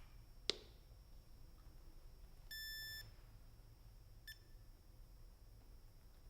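Testo 770-3 clamp meter being switched on: a sharp click from the button or rotary switch, then about two seconds later a half-second electronic beep, and a brief second blip about a second and a half after that.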